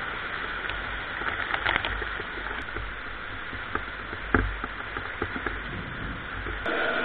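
Heavy rain and hail in a strong wind: a steady downpour hiss with wind rumbling on the microphone and scattered sharp ticks of hailstones striking. The loudest knock comes about four seconds in.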